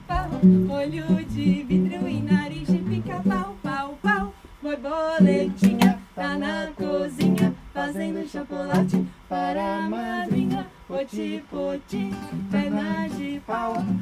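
Acoustic guitar (violão) playing a lively tune, with a voice singing along.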